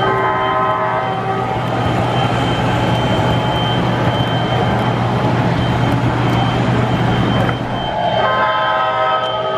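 O-gauge three-rail model train rolling along the track with a steady rumble, its MTH F40PH locomotive's onboard sound system sounding a chord horn briefly at the start and again near the end.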